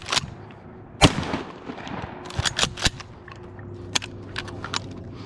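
A single loud shotgun shot about a second in, followed by several quieter sharp cracks a second or so later.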